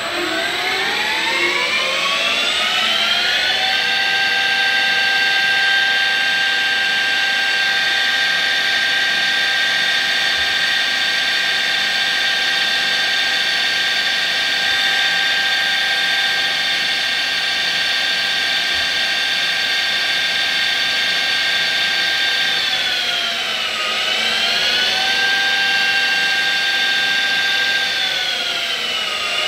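CNC spindle motor driven by a VFD (variable frequency drive), whining as it spins up with a rising pitch over the first few seconds, then holding a steady high whine at about 2,000 rpm. Near the end the pitch dips briefly and comes back up, then starts to drop again.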